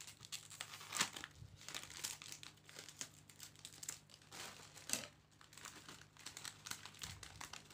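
Thin plastic snack packet crinkling and crackling as it is cut open with scissors and handled while its contents are pulled out, in irregular sharp crackles, the loudest about a second in and near five seconds. A faint low steady hum lies underneath.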